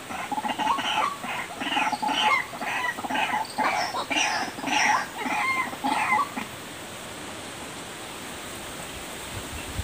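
White-breasted waterhen calls, a rapid repeated series of harsh notes about two a second, which stop about six and a half seconds in, leaving a steady hiss.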